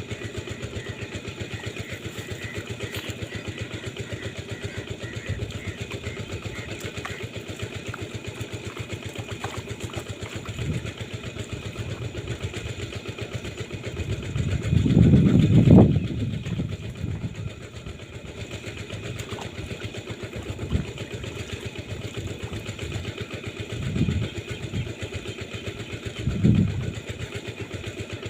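A small engine running steadily with a fast, even beat. It swells much louder about halfway through, then twice more briefly near the end.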